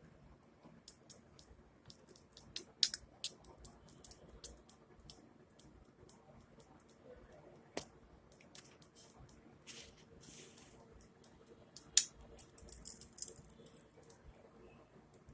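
Female budgerigar making strange sneeze-like noises: irregular sharp clicks in bursts, the loudest about three seconds and twelve seconds in, with a short hissing puff about ten seconds in. The owner takes it for vomiting.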